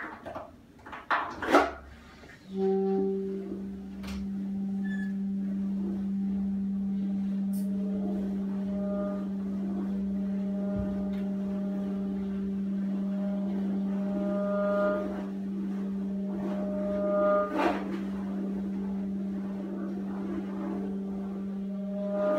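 A steady low drone on a single pitch, starting about two and a half seconds in and holding unbroken, its upper overtones swelling and fading, from a free-improvised duo of alto saxophone and percussion. A few sharp clicks come before it and once near the end.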